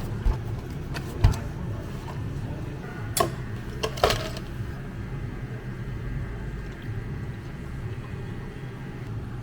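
Cafe counter work: a few sharp clinks and knocks of cups or utensils over a steady low machine hum.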